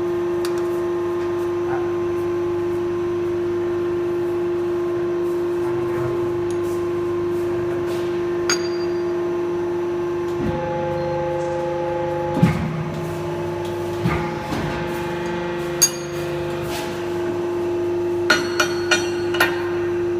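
Steady hum of a hydraulic compression moulding press, with extra tones joining it for several seconds in the middle. Sharp metal knocks as steel mould parts and tools are handled, and near the end a quick run of four ringing metal taps.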